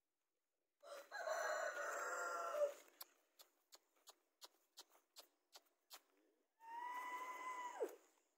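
A rooster crows twice: first a rough call of about two seconds, then a steadier held crow that drops in pitch at its end. A row of sharp clicks, about two to three a second, comes between the crows.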